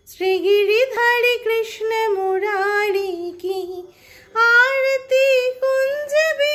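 A high voice singing a Hindi devotional aarti song to Krishna in long, melismatic phrases, with a short pause for breath a little after halfway.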